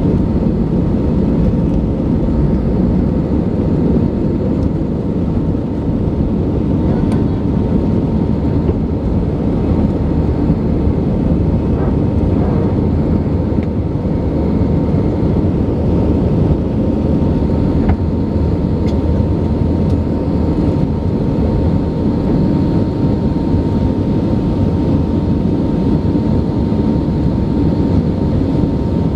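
Cabin noise of an Airbus A319 airliner: the jet engines and airflow make a steady, even roar, with a constant high tone running through it.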